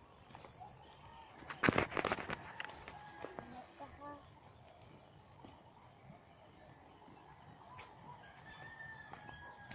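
Insects chirping steadily in a fast pulsing rhythm, about four or five pulses a second, with a rooster crowing near the end. A cluster of sharp knocks or scuffs comes about two seconds in.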